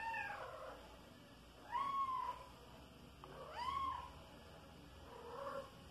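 Five-month-old kitten meowing four times, about two seconds apart, each call rising then falling in pitch; the last is fainter.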